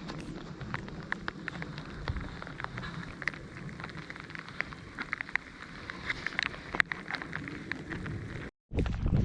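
Steady rain falling, with many small irregular drop ticks. The sound cuts out for a moment near the end.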